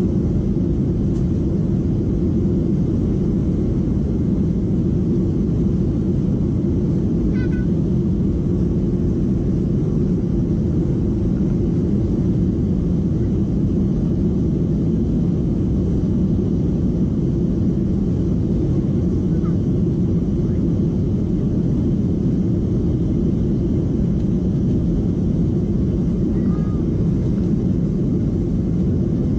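Jet airliner's engines at takeoff thrust heard from inside the cabin during the takeoff roll: a loud, steady deep rumble.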